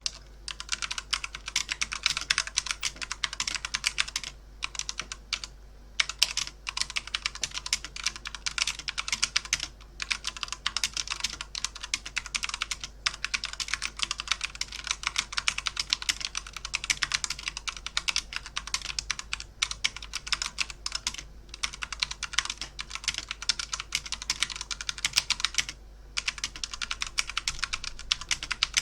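Computer keyboard being typed on fast, dense runs of key clicks broken by short pauses, the longest about four to six seconds in.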